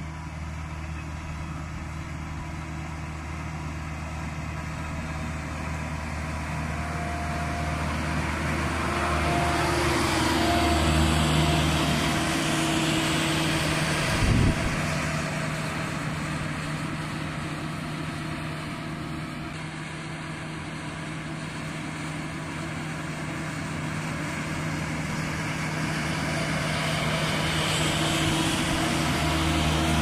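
HAMM 3410 single-drum road roller's diesel engine running steadily as the roller moves along, growing louder as it comes close about a third of the way in, with the engine note stepping up in pitch. A single short knock comes about halfway, and the engine grows louder again near the end as the roller comes back close.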